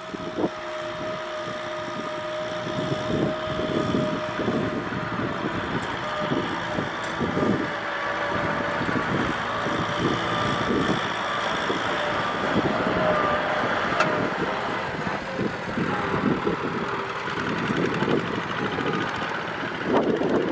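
Kubota M6040SU tractor's diesel engine running steadily under load as it tows a loaded trailer through deep mud, with the tyres churning and slinging wet mud.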